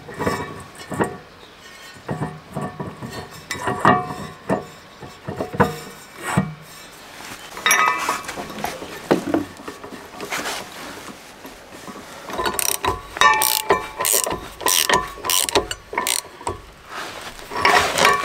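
Socket ratchet clicking in quick runs as the propeller nut is tightened on a boat's stern-drive propeller shaft, after scattered metal clunks and clinks as the four-blade propeller and its hardware are fitted onto the shaft.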